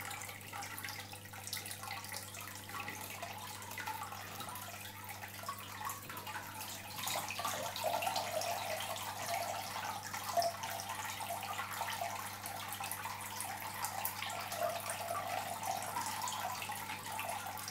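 Water trickling and dripping off a soaked aquarium filter sponge as it is lifted out of the filter chamber and held over a bucket, with a low steady hum underneath.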